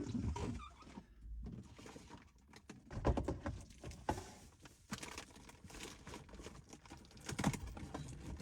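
Irregular handling noises: knocks, clicks and rustles of objects being picked up and set down, with louder thumps about three seconds in and near the end.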